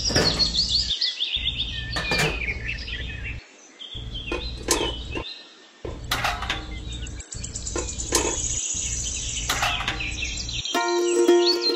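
Birds chirping in short repeated calls, with about half a dozen sharp taps and clinks as small metal buckets are handled and set down on a plastic toy trailer.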